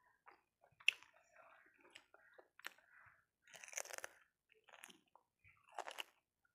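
Close-up chewing and biting: a person eating rice and crunchy raw salad vegetables by hand, in irregular short bursts, with a sharp click about a second in.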